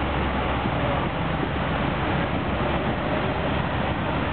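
Steady rushing hiss of water jets spraying out under a boat prop onto its trailer, over the low, steady running of the vehicle carrying it.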